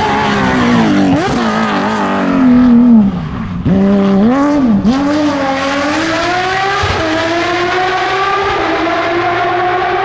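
Porsche 997 GT3 rally car's flat-six engine at full throttle, its note climbing through the gears. About three seconds in, at the loudest point, it lifts off and the pitch drops sharply, then it rises again through quick gear changes and holds a slowly climbing note as the car pulls away.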